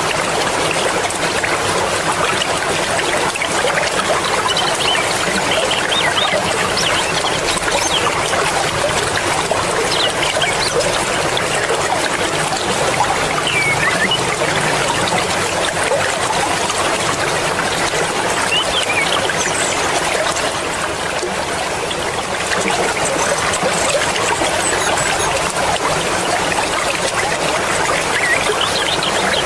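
Fast-flowing mountain river rushing and splashing over its bed, a steady even wash of water.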